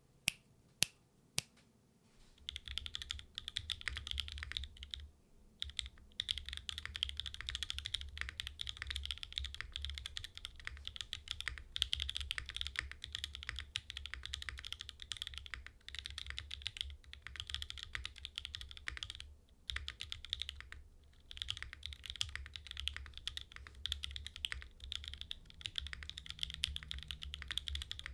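Mode Envoy mechanical keyboard with Obscura linear switches, GMK Botanical keycaps and no foam inside, being typed on. A few single keystrokes, then fast steady typing with brief pauses.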